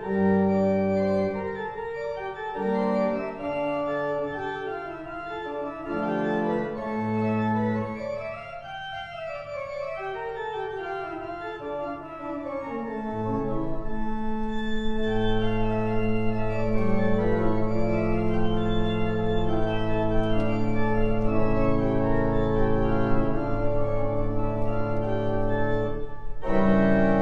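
Church pipe organ playing: a run of shorter changing chords, then from about halfway through louder, fuller held chords over a long sustained bass note.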